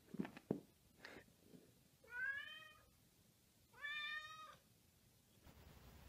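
Domestic cat meowing twice, each meow about a second long, the first about two seconds in and the second about four seconds in. A few short knocks come in the first second or so.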